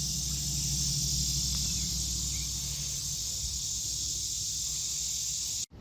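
Steady high-pitched insect chorus over a low steady hum, with a few faint short chirps; it cuts off abruptly near the end.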